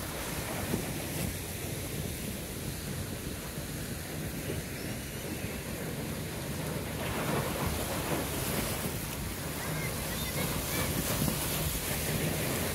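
Wind buffeting the microphone over choppy, churning sea water that splashes against the jetty rocks, the rough surf of an inlet stirred up by Hurricane Franklin's swell. A low steady hum runs underneath, and the noise grows a little louder about seven seconds in.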